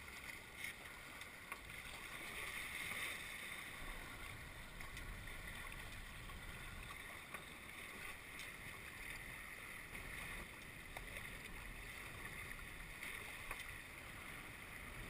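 Steady rush of water past a Tornado catamaran's hulls under sail, with wind on the microphone.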